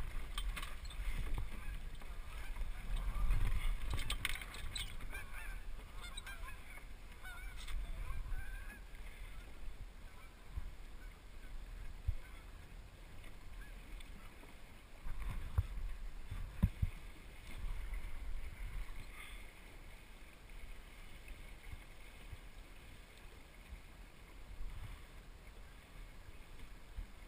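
Wind and water noise aboard a small sailing dinghy under way, with a run of short wavering calls in the first several seconds and a few dull knocks around the middle.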